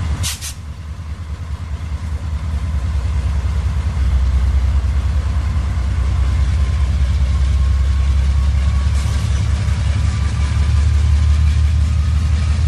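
HO-scale model freight cars rolling past on the layout track, a steady low rumble that grows a little louder a few seconds in. A brief high hiss sounds just after the start.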